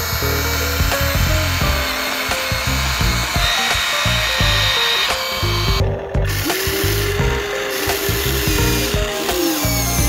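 Background music with a steady beat over a whirring, drill-like sound of a small motor.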